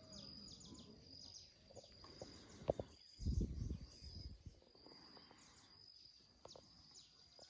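Faint early-morning birds outdoors: short high chirps repeating over a thin, steady high tone. A brief low rumble comes about three seconds in.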